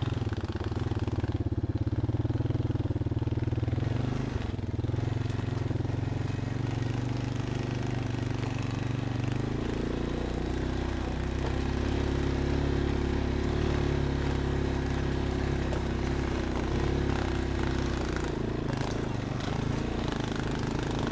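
Off-road vehicle engine running steadily at low revs, its note shifting to a deeper, different pitch about halfway through.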